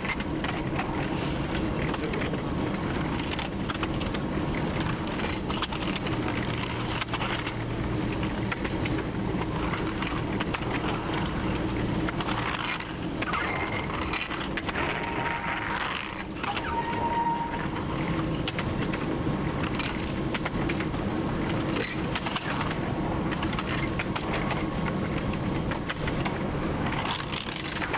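TU7 narrow-gauge diesel locomotive running along the track: a steady engine hum over the clatter of wheels on rails, with a couple of brief faint high squeals about halfway through.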